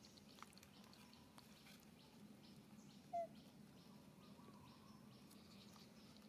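Quiet woodland ambience with faint high chirps and ticks, and one short, slightly falling call about three seconds in.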